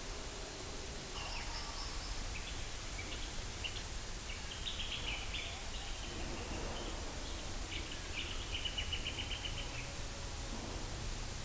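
Small birds calling in the bush: a string of short chirps and rapid trills, high-pitched, from about a second in until near the end, over the steady hiss of a field recording.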